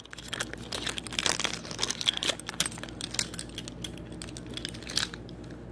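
Rustling, scraping and irregular clicking of a phone being handled and carried close to its microphone, over a faint steady hum.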